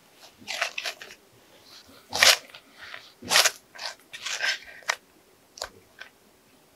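Hands kneading a ball of bread dough in a wooden bowl: about eight short, irregular pressing and rubbing sounds as the dough is pushed and turned against the wood.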